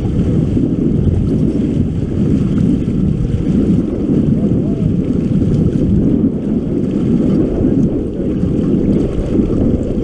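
Steady low rumble of wind buffeting the microphone on an open boat, with choppy water washing against the hull.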